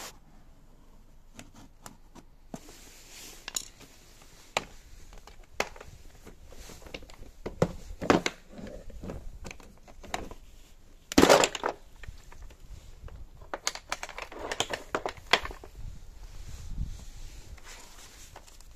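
Handling noise from a hard plastic Bosch tool case: scattered clicks and knocks as its seal sticker is cut and its plastic latch is opened, the loudest a short clattering burst about eleven seconds in as the case comes open. Near the end there is paper rustling as the manual is lifted out.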